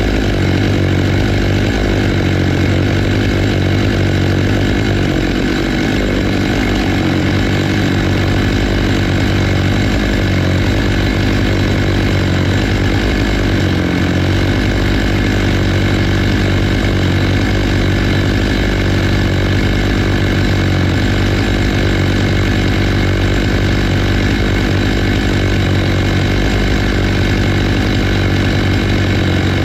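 Stihl MS 661 two-stroke chainsaw on a Logosol F2 Plus chainsaw mill, running steadily under load as its ripping chain cuts lengthwise through a black walnut log. The engine note holds even, with no let-up.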